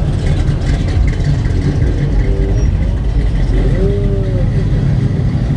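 Cars driving past close by one after another, their engines and exhausts giving a loud, steady deep rumble: first an older dark green sedan, then a blue Ford Mustang.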